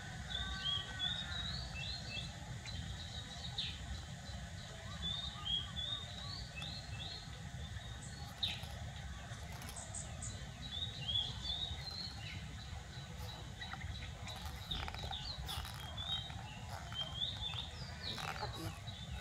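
Small birds chirping over and over in the background, short quick chirps over a steady low hum, with a few light clicks about halfway and near the end.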